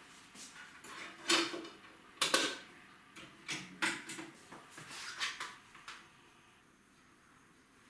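Hard plastic clicks and clatter as a CD and its case are handled at a mini hi-fi system, the two loudest clicks in the first couple of seconds. About four seconds in, the player's CD tray slides shut, and by about six seconds the sounds die away as it reads the disc.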